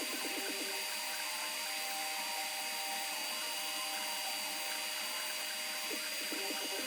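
Creality Ender 3 V2 3D printer printing: its stepper motors whine in shifting pitches as the head moves, over a steady high whine. The motor sound is busier near the start and again about six seconds in.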